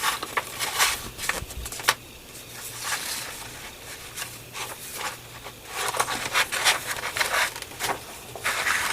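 Paper rustling with scattered light taps and clicks as a folded instruction sheet is handled and unfolded.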